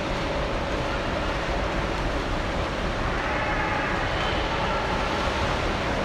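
Steady, even noise of a large indoor swimming-pool hall, with faint distant voices now and then and no splash or other sudden sound.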